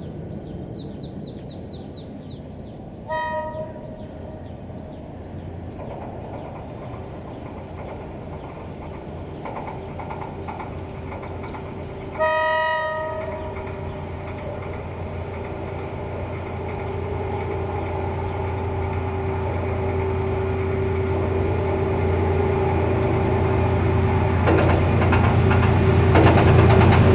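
Diesel locomotive hauling a freight train approaches, its engine rumble growing steadily louder. It sounds its horn twice: a short blast about three seconds in and a longer one of about a second near the middle.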